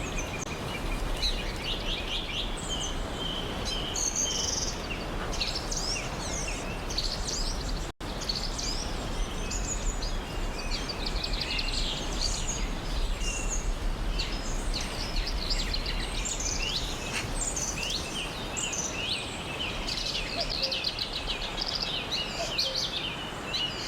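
Many birds chirping and trilling together over a steady background hiss. The sound cuts out for an instant about a third of the way through.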